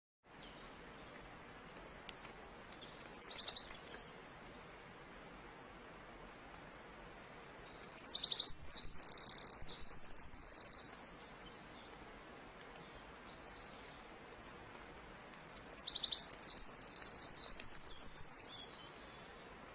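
A songbird singing three high phrases, each a string of quick chirping notes running into a rapid trill. The first phrase is short; the second and third, about a second apart within each, last around three seconds.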